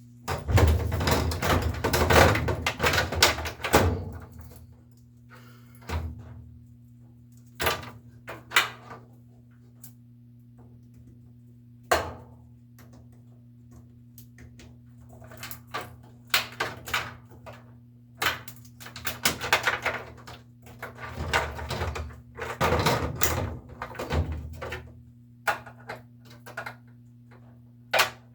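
Irregular knocks, clunks and rattles of washer parts and tools being handled during a top-load washer tub replacement, in clusters with quieter gaps, over a steady low electrical hum.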